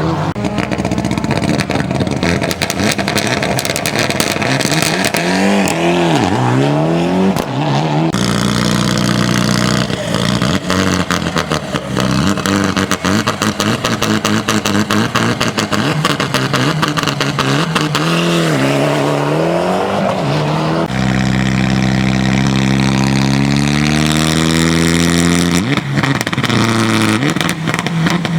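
Rally car engines revving hard and accelerating away from standing launches, several cars one after another with abrupt switches between them. The engine pitch rises and falls repeatedly with each rev and gear change.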